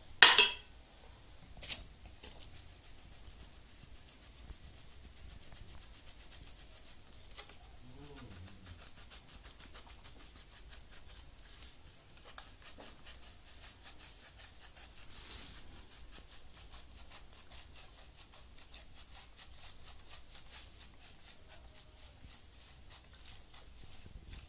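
Steel box grater rasping in quick, even strokes as a white block is grated over a pan of carrot halwa. A single sharp knock sounds right at the start.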